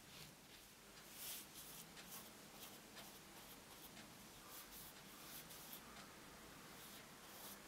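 Faint scratching of a flat bristle brush stroking yellow acrylic paint onto canvas, in short, irregular strokes.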